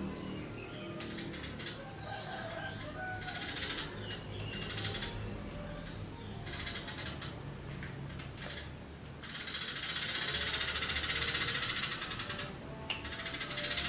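Eurasian tree sparrow singing rapid, high chattering trills in short bursts, then one long trill of about three and a half seconds near the end, followed by another.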